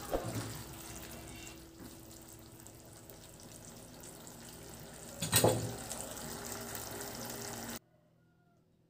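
Squid and vegetables in oyster sauce sizzling in a nonstick frying pan, with a spatula knocking and scraping the pan at the start and one louder knock about five seconds in. The sizzle cuts off suddenly near the end.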